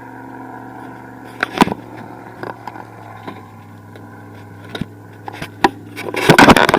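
A low steady hum with a few sharp knocks and scrapes, then a loud rush of noise starting near the end.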